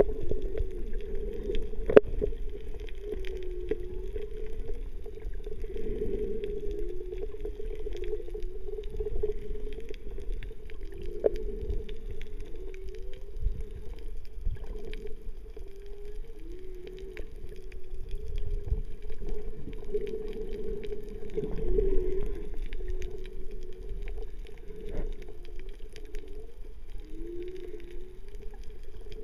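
Underwater sound picked up by the camera: a steady low wash with short, wavering low calls that glide up and down every second or two, and scattered faint clicks.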